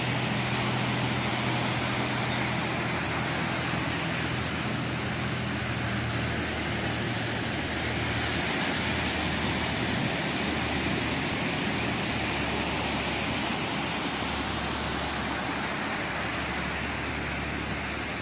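Steady outdoor background noise, an even hiss over a low rumble, with a low hum that shifts slightly in pitch about halfway through.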